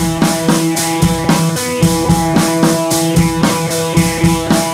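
Background rock music with a drum kit keeping a steady beat under held instrumental notes.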